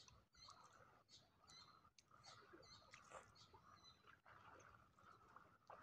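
Near silence: faint open-air ambience with scattered faint, short high chirps and ticks.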